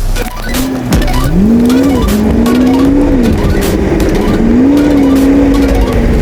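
An engine running, its pitch rising and falling as it revs up and eases off, with scattered sharp clicks.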